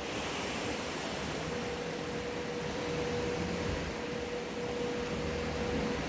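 Steady rushing noise of water in a surf wave pool, with a faint steady hum underneath.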